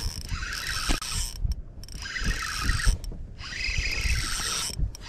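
Baitcasting reel being cranked in spurts while a hooked fish pulls the rod hard over, with a mechanical whir that stops and starts three times.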